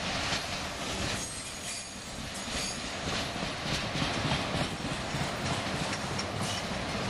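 Empty autorack freight cars rolling past on the rails: a steady wheel-on-rail rumble with irregular clicking and clatter of wheels over rail joints, and faint high wheel squeals now and then.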